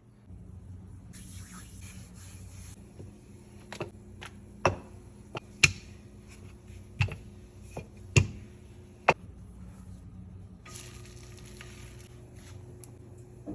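Kitchen cooking sounds at a pan: a light sizzling hiss, then a run of about seven sharp knocks and taps, then the hiss again, over a steady low hum.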